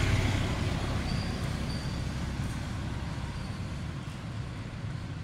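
A passing motor vehicle: a low rumble that is loudest at first and dies down gradually as it moves away.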